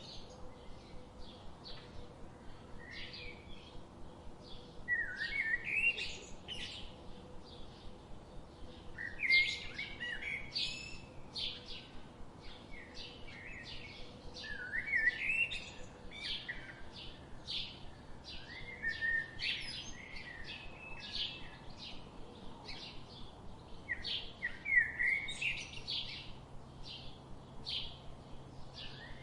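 Songbirds singing, several at once, in a steady chorus of quick overlapping chirps and trills.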